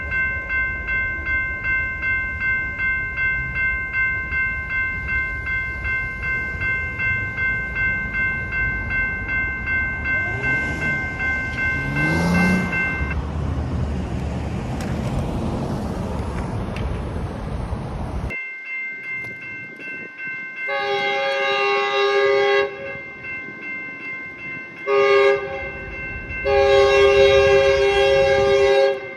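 Railroad crossing warning bells ringing steadily with a pulsing beat. Later an approaching Metrolink commuter train sounds its multi-note horn for the crossing: a long blast, a short one, then another long blast.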